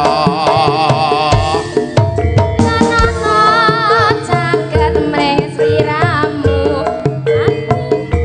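A Javanese gamelan ensemble playing karawitan: kendang hand-drum strokes and sustained metallophone notes under a wavering, ornamented sung melody.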